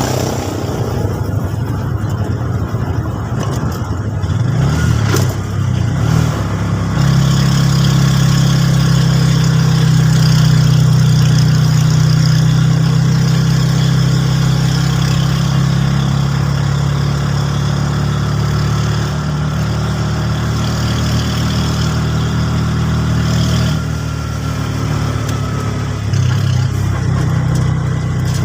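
Motor vehicle engine running steadily, getting louder about seven seconds in and easing off briefly near the end.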